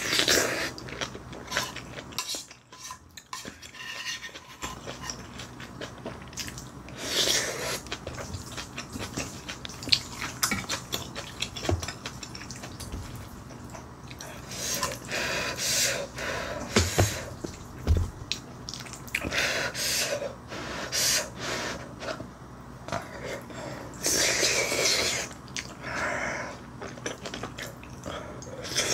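Close-up eating sounds of a person eating soft, wet fried rice and noodles: chewing and slurping, with a spoon and chopsticks clicking and scraping against a bowl and pot.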